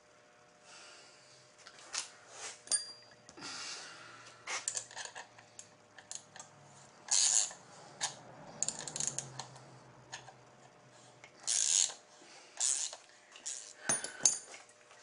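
Small metal hardware and hand tools clinking, clicking and scraping at irregular moments as a motorcycle mirror stem's jam nut and adapter stud are fitted and worked with a wrench.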